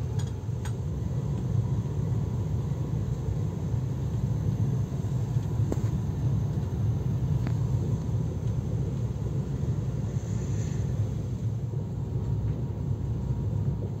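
Steady low rumble of a moving passenger train heard from inside the carriage, with a few faint clicks.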